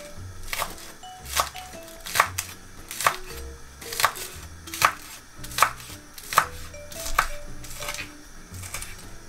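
Kitchen knife slicing spring onions on a bamboo cutting board: a sharp knock of the blade on the board at a slow, even pace, a little more than one stroke a second.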